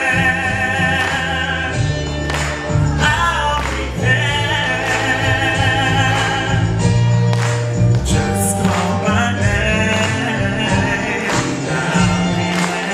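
A man and a woman singing through stage microphones, over a musical accompaniment with sustained low bass notes.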